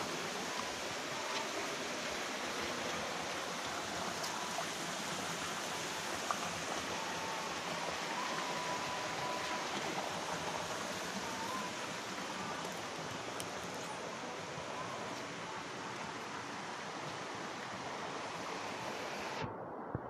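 Steady rush of a small waterfall and stream water pouring over rocks into a pool.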